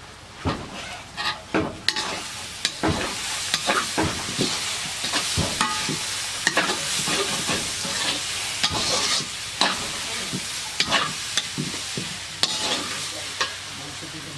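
Duck pieces frying and sizzling in oil in a metal wok while a flat metal spatula stirs them, scraping and knocking against the pan many times. The sizzle grows louder about two seconds in.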